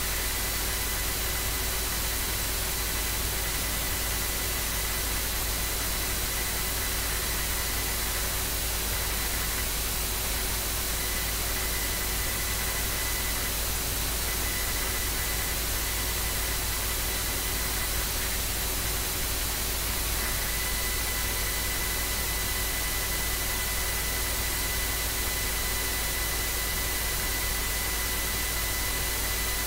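Steady hiss of microphone and recording noise, with a faint high electrical whine and a low hum underneath.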